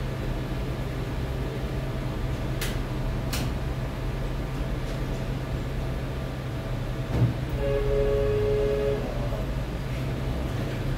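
Steady low hum with two sharp clicks a few seconds in. About seven seconds in comes a thump, then a short two-note horn-like tone lasting under two seconds.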